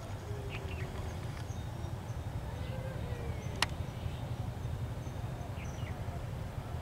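Birds chirping and calling, short chirps and gliding notes, over a steady low rumble. A single sharp click about three and a half seconds in.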